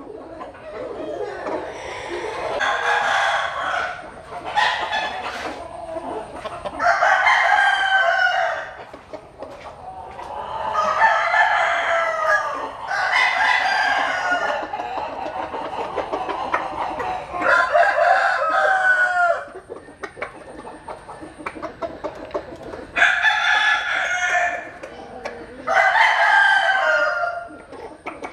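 A rooster crowing again and again, about seven crows of a second or two each, with softer clucking in the gaps between them.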